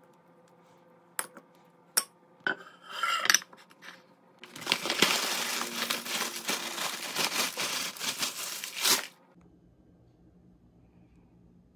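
Tortilla chips pouring out of a paper bag onto a platter, a dense crackling rattle of chips and crinkling paper lasting about four seconds. Before it, a few sharp clicks and a short scrape of a metal spoon against a glass mixing bowl.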